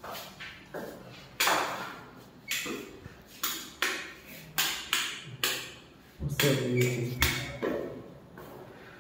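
About a dozen sharp knocks at irregular spacing, each ringing out briefly in a bare, echoing room.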